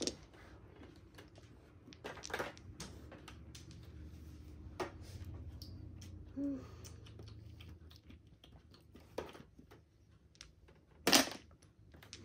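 Mahjong tiles clacking on the table in a few separate sharp clicks, the loudest about a second before the end. A faint low hum runs through the middle for a few seconds.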